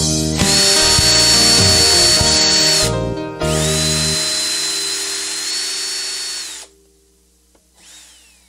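Electric drill-driver running in two bursts with a high, steady whine. The first lasts about two and a half seconds; after a short pause the second starts with a rising whine and runs about three seconds before cutting off. A faint falling whine follows near the end.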